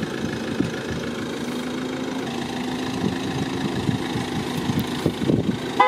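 Car engine idling steadily, just after starting, with a thin steady hum from about a second and a half in.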